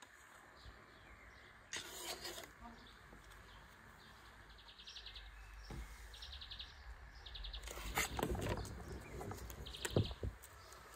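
A small bird chirping in short rapid trills, repeated several times, over the crinkling and crackling of a garlic bulb's papery skin being handled. The crackles are loudest in the last few seconds, with a couple of sharp cracks.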